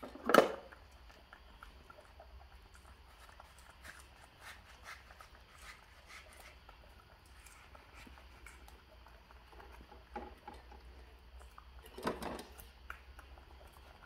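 Soft scattered clicks and scrapes of a knife slicing a ripe mango, with baby monkeys handling and eating mango pieces. Two brief louder sounds stand out, one just after the start and one about twelve seconds in.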